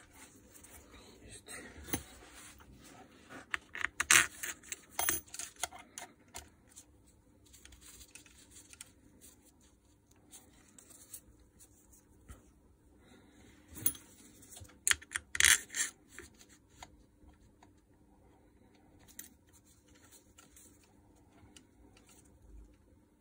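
Handling noise from the disassembled electric motor of a Makita UD2500 garden shredder: clicks, taps and scrapes of its metal housing and plastic fan being turned and fitted together by gloved hands. The sharpest clicks come in clusters about four seconds in and again around fifteen seconds in.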